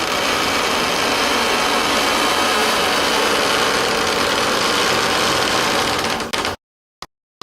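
Heavy door creaking open in one long, rough, grinding creak that cuts off suddenly about six and a half seconds in, followed by a short click.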